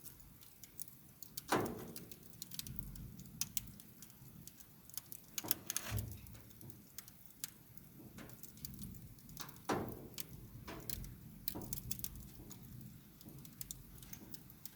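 Wood fire crackling: a steady scatter of small snaps and ticks over a low rumble, with a few louder pops spaced several seconds apart.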